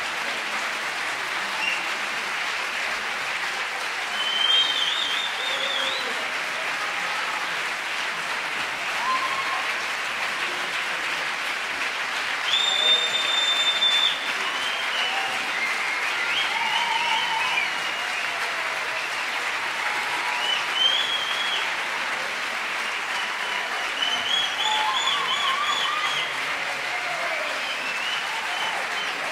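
Theatre audience applauding without a break after a choir concert, with shrill whistles and cheering shouts rising above the clapping now and then. The longest and loudest whistle comes about halfway through.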